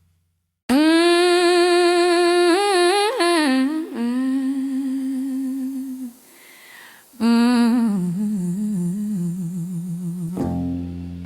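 A woman humming a wordless, slow blues line with vibrato in two long held phrases, with a short pause between them. Plucked guitar notes come in just before the end.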